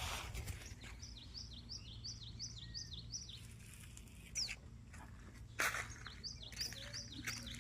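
A bird calling a quick run of repeated high chirps, about three a second, then starting again near the end over a steady low hum. A few sharp knocks, the loudest sounds, come about four and five and a half seconds in.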